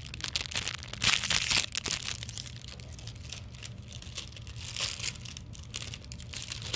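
Plastic wrapper of a Rice Krispies Treat bar crinkling and tearing open, loudest in a burst of crackling from about one second to just under two seconds in.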